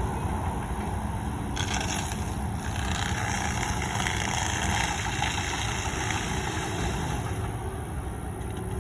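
Wood chipper running steadily, with harsher, brighter noise coming in about one and a half seconds in and again through the middle.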